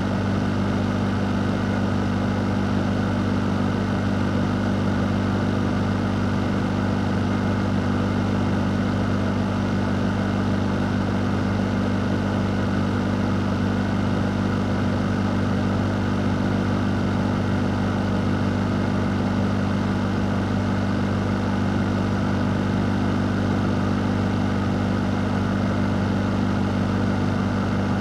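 An electric fan running steadily: an even rush of moving air over a low motor hum, with no change in speed or pitch.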